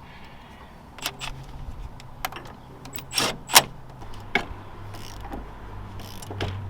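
Irregular metallic clicks and clanks of hand tools and suspension parts being handled, about eight sharp strikes, the loudest a little after three seconds in. A low steady hum runs underneath from about a second in.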